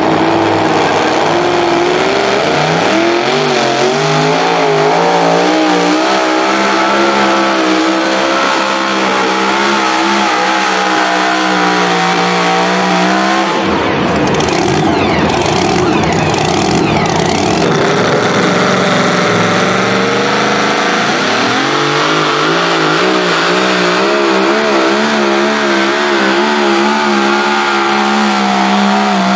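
Super modified 2WD pulling truck's supercharged engine at full throttle down the track, revs climbing over the first few seconds and then held high with a wavering pitch. A rougher, noisier stretch comes about midway. Then another pulling truck's engine comes in at high revs.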